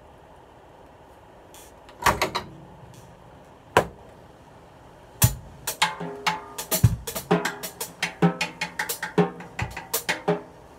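Acoustic drum kit played with sticks: a quick cluster of strokes about two seconds in, a single hit near four seconds, then from about five seconds a busy pattern of snare and tom strokes with bass drum kicks, the toms ringing briefly after each hit.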